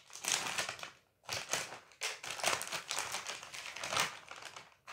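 Crinkling and rustling of a plastic snack bag being slit open with a small handheld bag slicer and pulled apart by hand, in several crackly bursts with a short pause about a second in.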